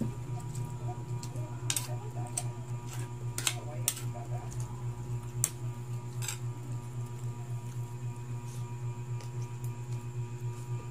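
Eating sounds: a metal spoon clicking and scraping on a ceramic plate, with mouth and chewing noises, as short sharp clicks several times in the first six seconds and fewer after. Underneath is a steady low hum with a regular throb.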